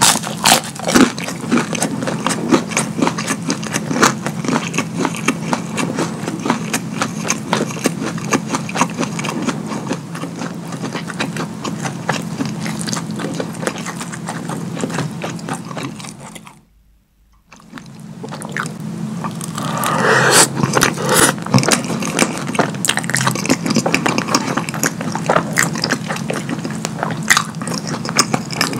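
Close-miked eating sounds: wet chewing, lip smacking and finger licking on chicken nuggets and sauce-covered cheese fries. The small clicks come thick and fast over a steady low hum, and break off for about a second midway.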